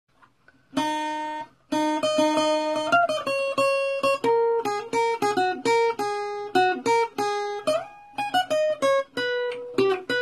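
Solo acoustic guitar playing a picked melodic intro of single ringing notes with a couple of slides between notes, starting about a second in.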